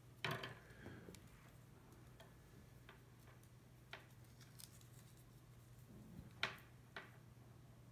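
Faint handling noise of a braided USB-C magnetic charging cable being uncoiled and turned over in the hands: light rustles and a few small clicks, the sharpest about six and a half seconds in, over a low steady hum.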